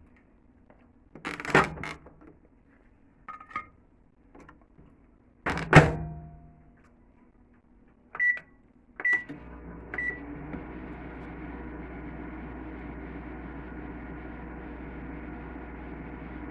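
Two loud clunks of a microwave oven door, then three short keypad beeps about a second apart, after which the microwave oven starts running with a steady hum.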